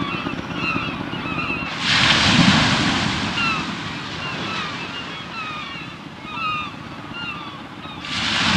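Ocean waves breaking on a shore: one wave crashes about two seconds in and washes out over several seconds, and another breaks near the end, over a low rumble of surf. Birds chirp repeatedly throughout.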